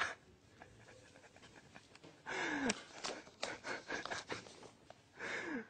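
A man laughing in breathless, gasping bursts, the first about two seconds in and the last near the end, each falling in pitch. The first two seconds are quiet but for a few small clicks.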